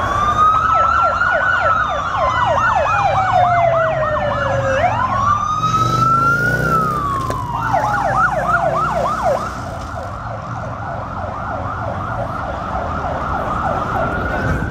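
Several emergency vehicle sirens sounding together: a slow wail that rises and falls, overlapping a fast yelp that sweeps several times a second.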